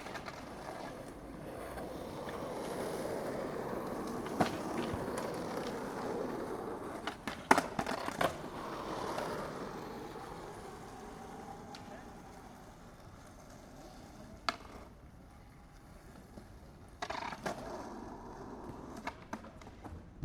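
Skateboard wheels rolling, swelling and then fading as the board passes, with sharp clacks of the board striking the ground several times, the loudest about seven to eight seconds in.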